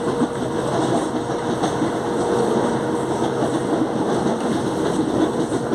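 Growling traction motors and wheel-on-rail rumble of a CPTM Series 8000 electric train car in motion, steady throughout with light clicking from the track.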